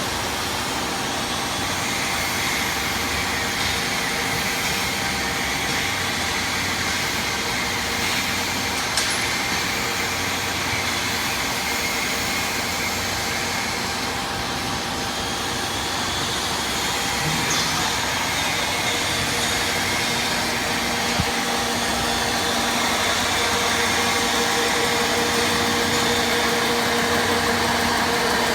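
Single-spindle steel beam drilling machine running with a steady mechanical hum, two sharp clicks along the way, and a slight rise in level with a new steady tone in the last few seconds.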